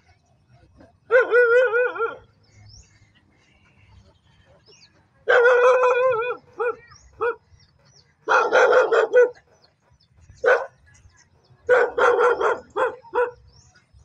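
Loud animal calls in five short runs, each a quick series of strokes, with pauses of a second or more between runs.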